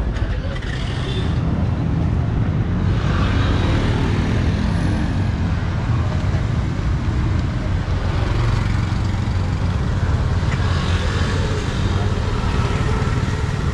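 Busy street traffic: motor scooters running and passing close by, a steady rumble, with people talking in the background.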